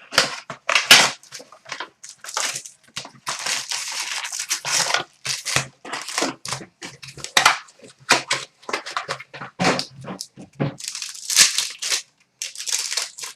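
Trading card packaging being torn and crinkled open: a run of irregular rustling and tearing as a 2011-12 SPX hockey box and its pack wrappers are opened.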